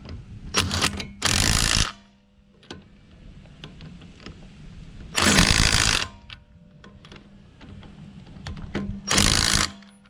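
Impact wrench run in three short bursts of hammering rattle, a few seconds apart, each under a second long: typical of wheel nuts being run on as the wheel goes back onto the car.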